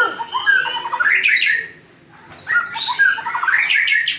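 White-rumped shama singing: two phrases of rich whistled notes with quick rising sweeps, separated by a short pause about two seconds in.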